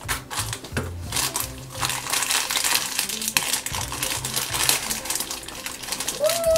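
Plastic blind-bag wrapper crinkling and rustling as hands tear it open and unwrap a small toy, with irregular crackles throughout, over background music with a low bass line.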